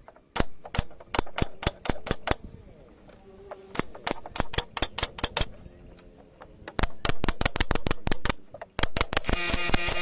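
Pneumatic nail gun firing into wooden boards: a series of sharp shots, about two or three a second, in three runs with short pauses between. Music comes in near the end.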